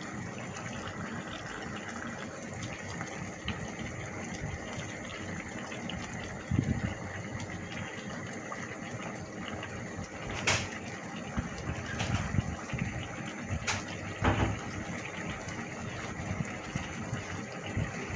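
Tomato sauce with shrimp and bell peppers simmering and bubbling in a pan, a steady sizzling bubble. A few sharp clicks and light knocks come in the middle.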